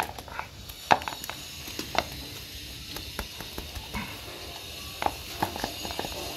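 Small live fish being shaken and poured out of a rabani fish trap: irregular light taps and clicks over a steady faint hiss.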